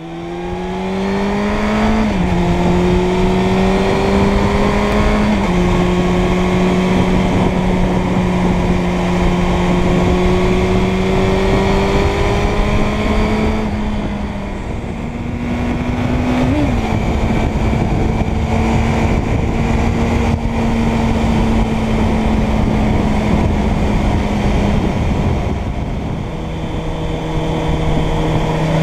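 Suzuki Bandit 600's inline-four engine running on the road, its pitch climbing and then dropping with upshifts about two and five seconds in, then holding steady with a brief easing off midway and a lower note near the end, under a heavy rush of wind noise.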